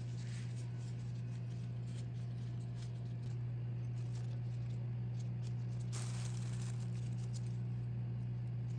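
Steady low hum, with faint scrapes and ticks of a knife trimming pastry dough along the rims of perforated steel tart rings; a brief, louder scrape comes a little past halfway.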